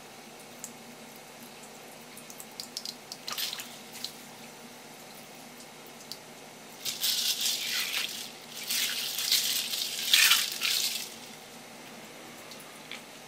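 Water splashing in a kitchen sink in two bursts, the second about two seconds long and the loudest, after a few light clicks and a shorter splash.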